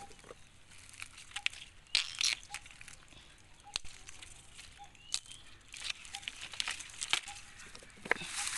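Dry bamboo leaves and stalks crackling and rustling, with scattered sharp snaps, as young bamboo shoots are broken off by hand.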